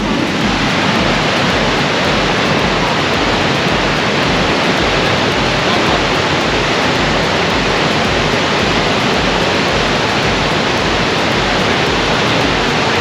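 Great Falls of the Potomac River rushing over the rocks: a loud, steady roar of falling water.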